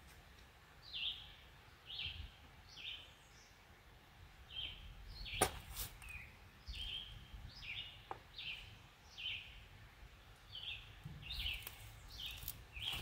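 A songbird chirping over and over, short falling notes about one or two a second, above a faint low rumble. A single sharp click about five and a half seconds in.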